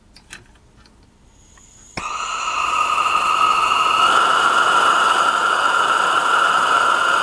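Gas burner of a model steam boiler lighting with a sudden pop about two seconds in, after a few faint clicks, then burning steadily with a whistling tone as its flame fires into the boiler's fire tube.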